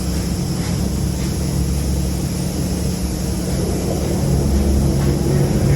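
Steady low mechanical drone of machinery running, several low tones held level, growing slightly louder near the end.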